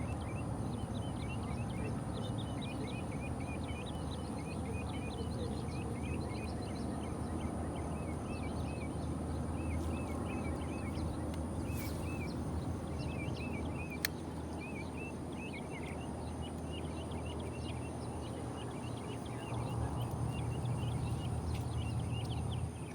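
Small birds chirping in quick, repeated short notes over a steady low rumble, with one sharp click about two-thirds of the way through.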